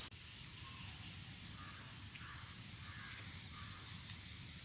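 Faint outdoor ambience with distant crows cawing a few times.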